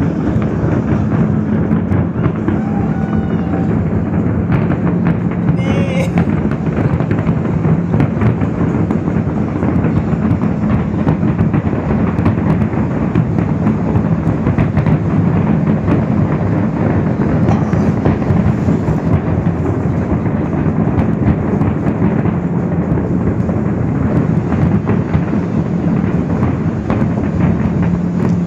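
Large fireworks display: many shells bursting at once in a dense, unbroken barrage of bangs and crackles, over a steady low drone.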